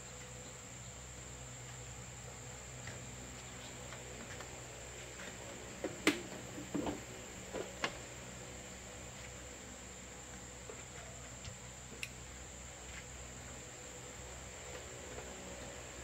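Steady high-pitched insect chirring, with a few short clicks and knocks from hands working on a motorbike's front end and wiring, the loudest about six seconds in, a few more just after, and one more sharp click around twelve seconds.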